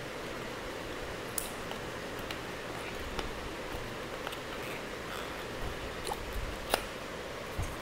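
Hands handling a smartphone's cardboard retail box and the packed charger and cable: a few short clicks and taps, the sharpest about two-thirds of the way through, over a steady hiss.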